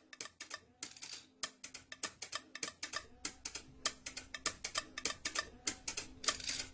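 Soft, quick ticking clicks, a light percussive pattern that grows faster and denser from about halfway through, with a faint low hum beneath and two short hissy swishes, one about a second in and one near the end.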